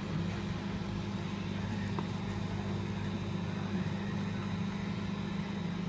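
Steady low electrical hum from a running appliance, even and unchanging, with a faint tick about two seconds in.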